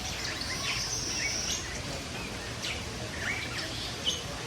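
Several caged birds chirping and calling in quick short notes, with one drawn-out high note about half a second in, over a steady background hum.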